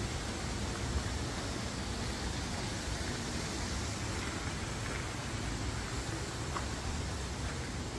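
Steady, even background noise like a hiss, with no distinct event in it.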